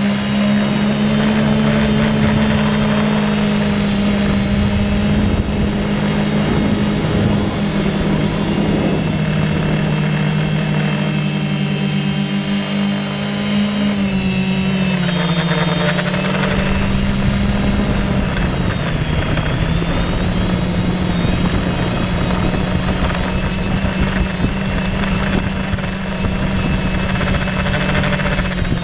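Multirotor drone's motors and propellers humming steadily, with a steady high whine; the pitch dips about halfway through and settles back a few seconds later.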